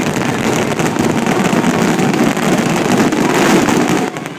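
Fireworks finale barrage: many shells bursting in quick succession, merging into one continuous loud crackle. It eases slightly near the end.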